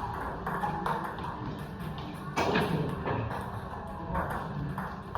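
Pool balls knocking together in a few sharp clicks, the loudest about two and a half seconds in, over background music and faint voices.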